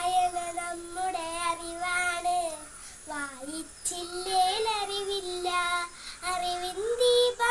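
A young girl singing a Malayalam children's poem in held, melodic phrases with short pauses between them.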